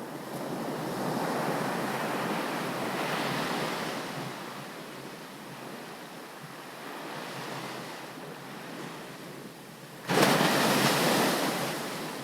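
Ocean surf on a beach: a long wash of water swelling and easing off over the first few seconds, then a wave breaking suddenly and loudly near the end and washing out.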